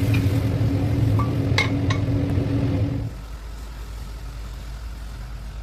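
A steady mechanical hum with a couple of light metal clinks about a second and a half in. About three seconds in, the hum drops away suddenly to a quieter, lower drone.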